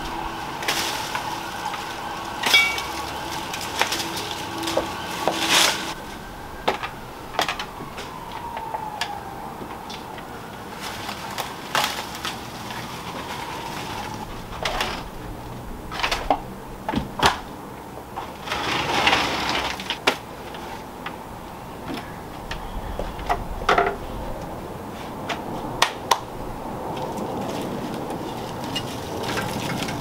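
Ivy (Hedera) being pulled off a brick wall: irregular snaps and crackles of its stems, with rustling of the leaves and a longer rustle near the two-thirds mark.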